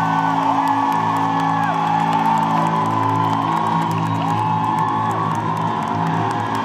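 Live band playing, with sustained chords over a steady low end, and audience members whooping over the music.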